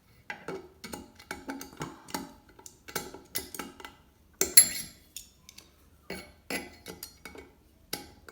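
Light metallic clicks and clinks, a few a second, the sharpest about four and a half seconds in, as a 2 mm Allen key works loose the grub screw holding a bathroom mixer tap's lever.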